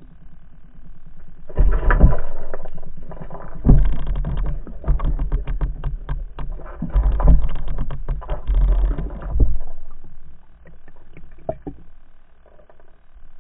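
A pike striking and shaking a large lure, heard underwater through a camera housing as bursts of heavy muffled thuds and rapid rattling clicks. The sound starts about one and a half seconds in and dies away after about nine and a half seconds, leaving a few faint scattered clicks.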